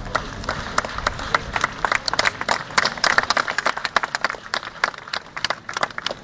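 Scattered hand clapping from a small crowd of football spectators, thickest in the middle and thinning toward the end.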